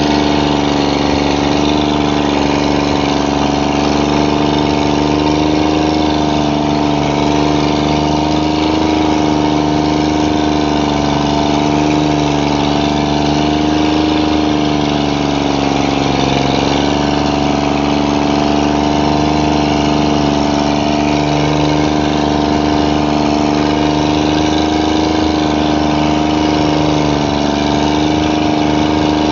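A motor running steadily at constant speed, with a strong, even pitch that wavers slightly and dips briefly about sixteen seconds in.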